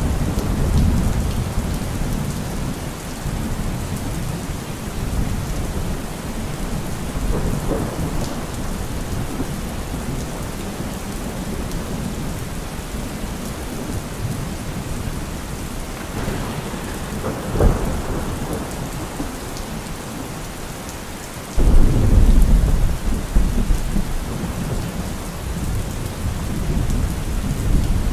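Steady rain falling, with deep low rumbles now and then and one short sharp crack a little past halfway. About three-quarters of the way through, the sound jumps suddenly louder and deeper.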